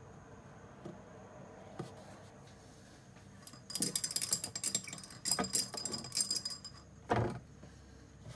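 Small hard objects clattering and rattling while being handled, a rapid jumble of clicks for about three seconds, ending in one louder knock.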